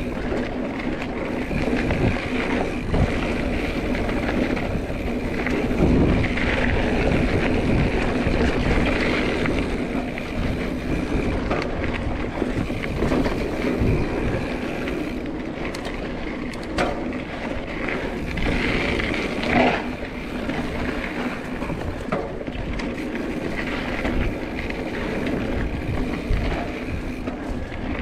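Mountain bike riding a dirt singletrack: steady rolling and rattling noise from the tyres and bike, with wind on the microphone and scattered knocks over bumps.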